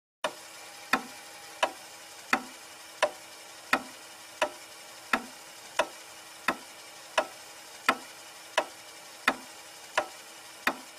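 Clock ticking steadily, about three even ticks every two seconds.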